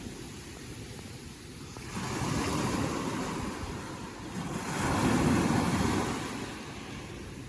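Ocean waves breaking and washing in, swelling twice, about two seconds and about five seconds in.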